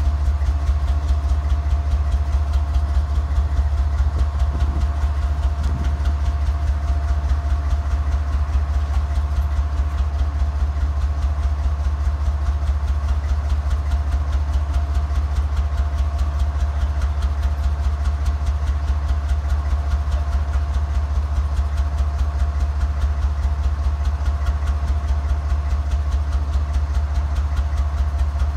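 A Norfolk Southern GE ES44DC diesel-electric locomotive idling while standing still: a steady, deep engine throb with an even pulse and a steady whine above it.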